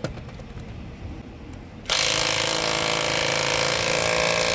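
Kimo 20V brushless mid-torque cordless impact wrench hammering on high for about three seconds, starting about two seconds in and stopping near the end, as it breaks loose a lug nut torqued to 230 ft-lb; it comes off "like butter".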